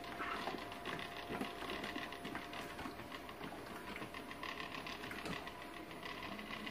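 Coredy robot vacuum running in mopping mode with its water tank fitted, a steady motor whir with a fast rattling tick as it drives across the floor.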